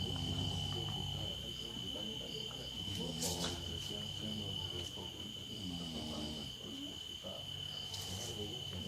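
A person snoring: low rasping breaths swelling about every two to three seconds, with two short hissing bursts, one about three seconds in and one near the end, over a steady high-pitched tone.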